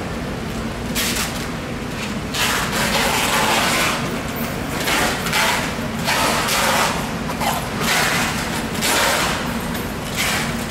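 A large knife scraping and slicing along a giant bluefin tuna's skin and flesh in repeated strokes, about seven of them, each under a second or two long, over a steady low hum.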